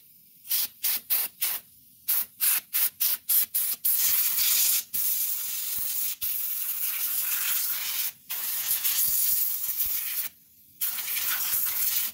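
Compressed air hissing from a nozzle: about a dozen short quick puffs, then long continuous blasts with a few brief pauses.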